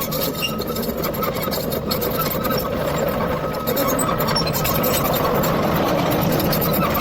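Excavator's diesel engine running steadily, with a faint steady whine over it, getting a little louder about four seconds in.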